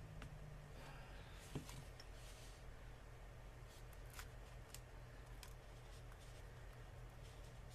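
Faint scraping and a few small sharp clicks of a tool prying at the edge of a Samsung Galaxy S3's cracked front glass, over a low steady hum; the loudest click comes about a second and a half in.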